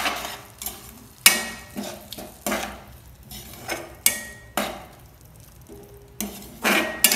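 Slotted metal spatula knocking and scraping against a stainless steel kadhai while stirring a thick frying masala: irregular clanks about every half second to a second, several with a short metallic ring from the pan.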